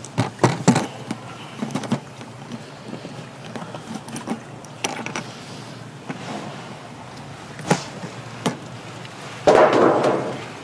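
Sharp clicks and snaps of a red plastic pull-out spout being pried up and opened on the metal lid of a cooking-oil tin. The snaps are thickest in the first second, with a few more spread through the rest. Near the end comes a louder burst of rushing noise lasting about a second.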